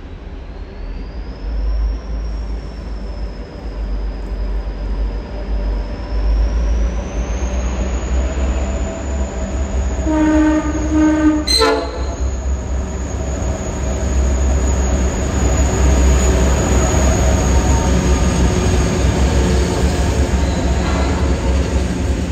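Freight train hauled by three diesel-electric locomotives approaching and running through the station, its low diesel rumble growing steadily louder. One horn blast of about a second and a half sounds about ten seconds in, ending in a sharp crack, and then the loaded steel-coil wagons roll past. A thin high whine rises slowly in pitch through the first several seconds.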